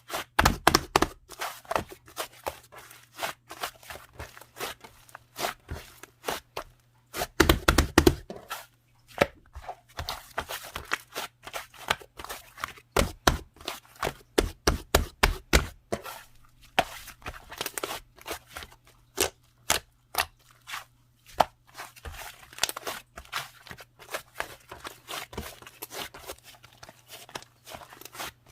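Fluffy clay slime being squeezed, stretched and poked by hand: a dense run of sticky clicks, pops and tearing crackles, loudest about a second in and again around eight seconds in, over a faint steady hum.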